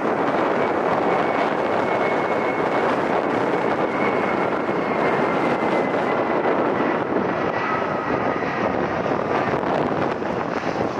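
Jet airliner engines running steadily, with a thin high whine that slowly falls in pitch, mixed with wind noise on the microphone.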